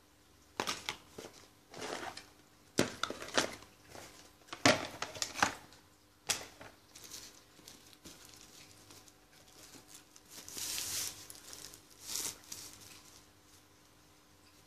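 Plastic packaging crinkling and rustling as it is handled: a run of sharp crackles and clicks in the first six seconds, then softer, longer rustles.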